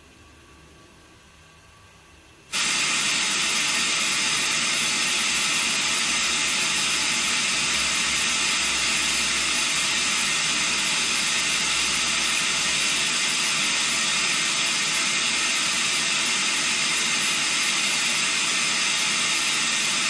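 Analogue television static: loud, even white-noise hiss from a CRT TV set's speaker. It comes in suddenly about two and a half seconds in, as the analogue transmitter goes off the air and the set is left with no signal, and then holds steady.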